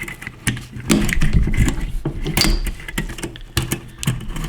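Metal clicks and scraping from handling the parts of a Tisas 1911 pistol, as the recoil spring cap is pressed down against the spring during reassembly.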